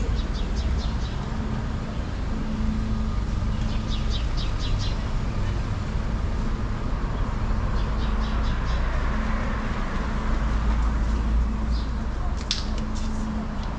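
City street ambience: a steady low rumble of traffic with a faint engine hum, and a bird chirping in quick runs of high notes a few times. A single sharp click near the end.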